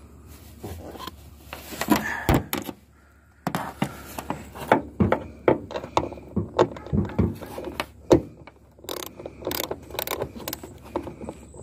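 Irregular knocks, clicks and rattles of hands and tools at work on a small boat close to the microphone, with a brief lull about three seconds in.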